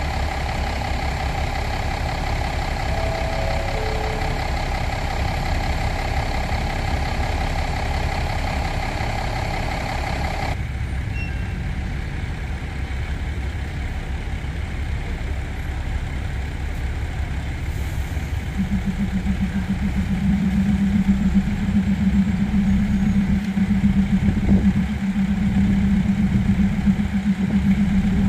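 Diesel railway engines running steadily with a low rumble. From about two-thirds of the way through, a louder steady low hum comes in as an SRT Hitachi diesel-electric locomotive draws near.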